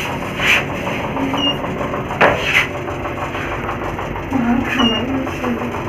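Passenger lift in motion, heard from inside the cabin: a steady mechanical hum, with a single sharp click about two seconds in.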